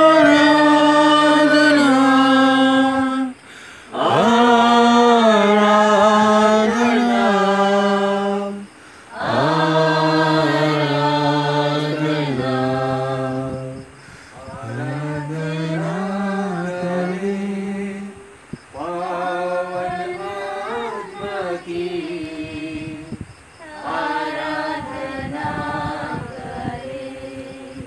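Voices chanting a slow devotional hymn in phrases of a few seconds, each ending in a short pause for breath. The first phrases are louder and the later ones softer.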